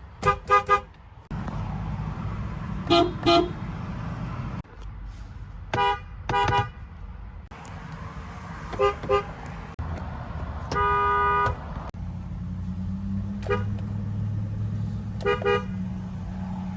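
Car horns from a series of different cars, one after another. Most give two or three short toots. One holds a single honk for about a second near the middle. A low steady hum runs under the later horns.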